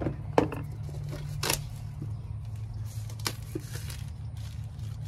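Cardboard box of LED headlight bulbs being opened by hand: a few sharp clicks and scrapes from the box, then the crinkling of a plastic bag being pulled out, over a steady low hum.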